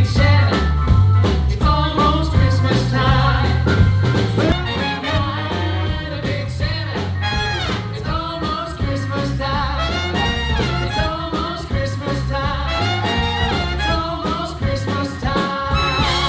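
A band playing an upbeat song with singing over a stepping bass line and drum kit.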